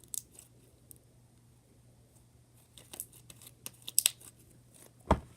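Butter slime with glitter being stretched and squeezed by hand, giving scattered sticky clicks and small pops. A dull thump comes near the end.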